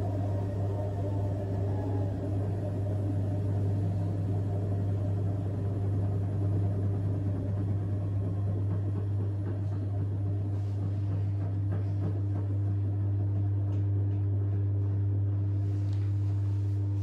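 AEG washing machine spinning its drum at steady high speed during the intermediate spin of a cotton wash, with a steady low motor hum.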